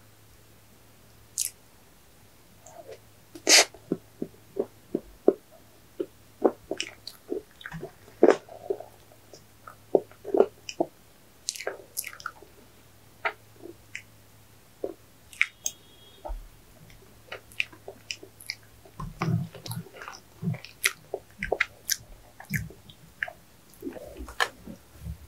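Close-miked chewing: a person eating sweets, with many short, wet mouth clicks and smacks at irregular intervals.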